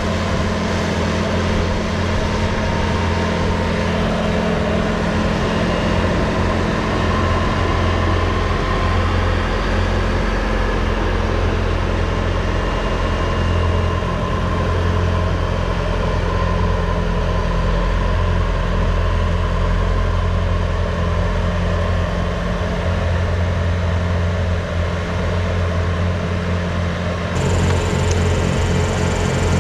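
A heavy engine running steadily with a deep, even hum, from snow-clearing equipment at work. The sound changes abruptly near the end.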